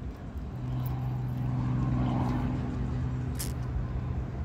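An engine hums steadily at one pitch over a low rumble, with a short sharp click about three and a half seconds in.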